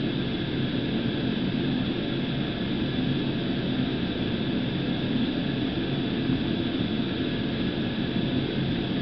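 Steady machine drone with a low hum under an even hiss, unchanging throughout.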